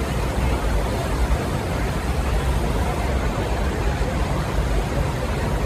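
Steady rushing noise with a deep, fluctuating rumble underneath.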